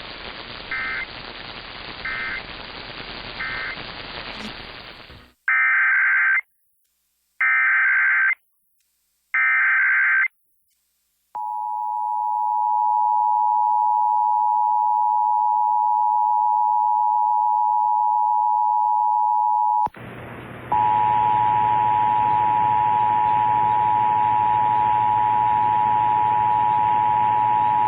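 Emergency Alert System tones received over radio. Three short data blips sound over static, then three one-second bursts of screechy SAME header data code. After that comes the steady two-tone EAS attention signal (853 and 960 Hz), held about eight seconds. It cuts off and a second copy of the attention signal starts over hiss.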